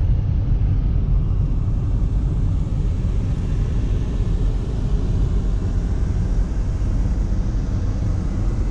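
A car driving along, with a steady low rumble of road and engine noise heard from inside the cabin.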